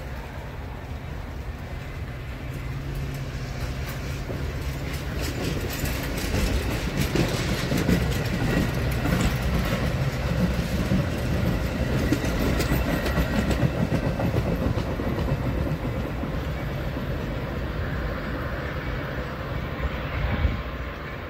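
Metra commuter train's stainless-steel Budd bilevel coaches rolling past as the train pulls out, the wheels clicking over rail joints. The sound builds to its loudest with a run of sharp clicks through the middle, then fades as the cab car draws away.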